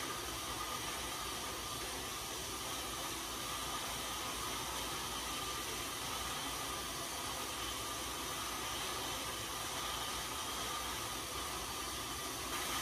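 Road bike tyres spinning on InsideRide rollers at an easy recovery pace: a steady whirring hiss.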